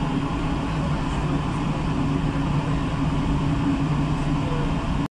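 Steady cabin noise inside a taxiing Boeing 777-200ER: an even low drone of the engines at taxi power with the hiss of the cabin air. It cuts off suddenly near the end.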